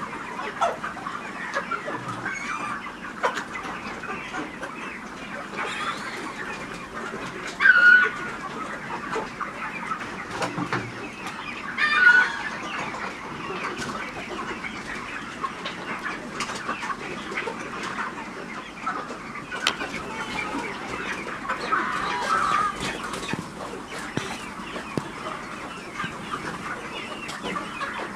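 A flock of broiler chickens clucking and chirping together in a steady, overlapping chatter, with two louder single calls standing out about eight and twelve seconds in.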